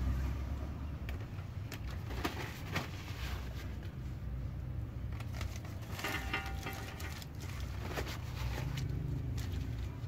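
Motorcycle 525 O-ring roller chain clinking and rattling as it is handled at the rear sprocket: scattered light metallic clicks over a low steady rumble.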